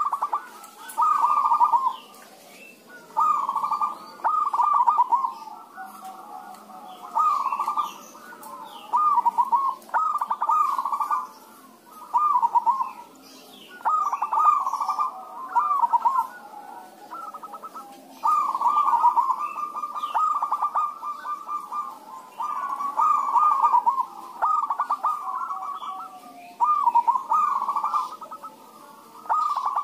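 Several zebra doves cooing in their full perkutut song, answering one another. Their trilled coo phrases come one after another every couple of seconds.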